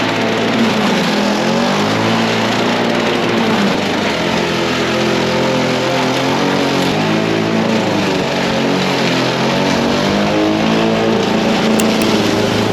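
Lawn mower engine running hard while scalping grass down to the concrete, its pitch wavering up and down as the load changes.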